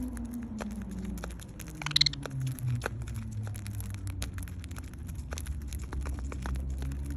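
Budgies pecking and cracking seed: scattered sharp clicks and taps, with a short high chirp about two seconds in, over a low steady hum.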